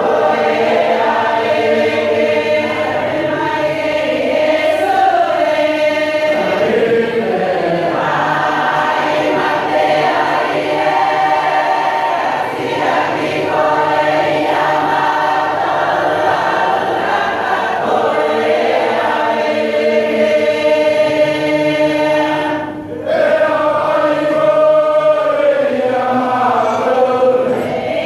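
A church congregation singing a hymn together, many voices holding long notes in harmony, with a short break between phrases about three-quarters of the way through.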